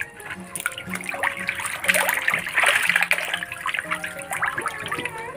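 Catfish thrashing and splashing at the water surface as they feed on thrown small fish, a busy crackle of splashes that is loudest around the middle.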